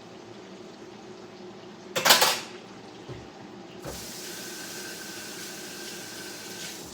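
Fish fillets deep-frying in hot grease with a steady sizzle. A sharp, loud clatter comes about two seconds in. Near four seconds a louder hiss starts suddenly, then cuts off near the end.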